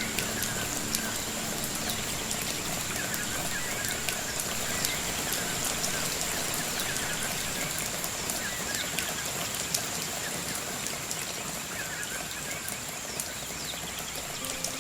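Rain pattering in rainforest foliage: a steady hiss with many scattered drips. A bird repeats a short chirping call every couple of seconds, over a thin, steady high tone.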